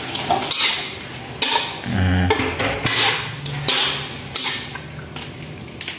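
Metal spatula scraping and clattering against a wok in irregular strokes, stir-frying chopped chicken gizzards.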